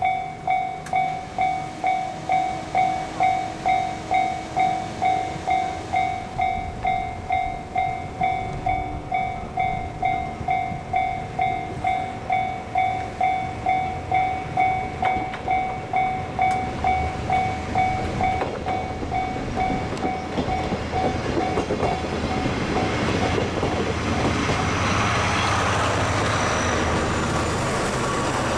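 Japanese level-crossing warning bell clanging about twice a second. Over the last ten seconds it gives way to the rising rumble and engine of a Kisuki Line diesel train coming up to the crossing.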